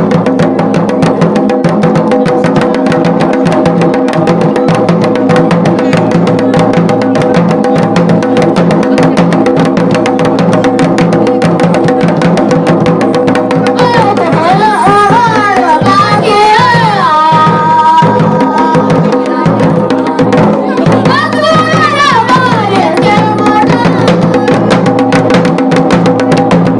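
Garhwali dhol beaten in a fast, dense rhythm over a steady sustained drone. A wavering, ornamented melody comes in about halfway through and again near the end.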